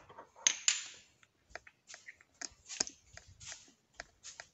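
Spice jars with plastic caps clicking and knocking together as they are picked up and handled: an irregular run of short clacks, the loudest two about half a second in.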